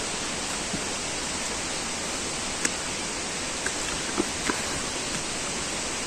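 Steady hiss of falling water, with a few faint ticks scattered through it.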